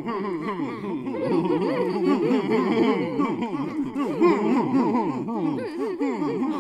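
Several overlapping voices laughing and chattering, their pitch wavering up and down continuously.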